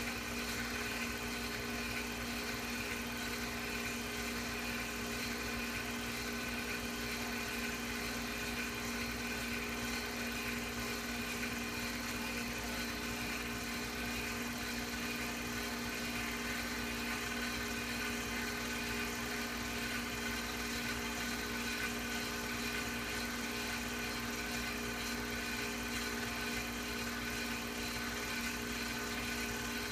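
Film projector running: a steady mechanical whir with a constant hum, unchanging in level.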